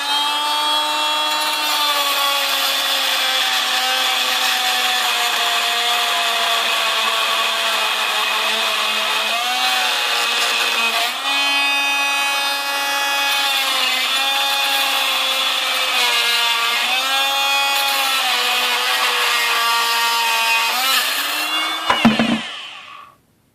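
Handheld electric power tool running at high speed to cut apart a scrap electric motor, its steady whine dipping in pitch several times as it takes load. There is a short clatter near the end, then it shuts off abruptly.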